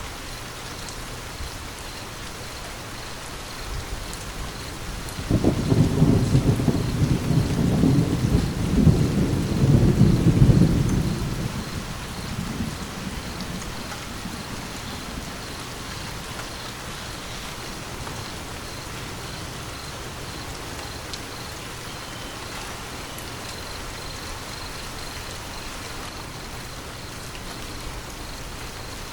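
Steady rain falling, with a roll of thunder that breaks in suddenly about five seconds in, rumbles low for several seconds and dies away. The rain carries on evenly afterwards.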